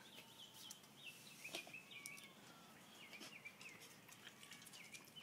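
A husky lapping and mouthing in a metal-lined water dish, faint wet clicks and splashes as it fishes out soaked cat food. Repeated high, wavering chirps run alongside.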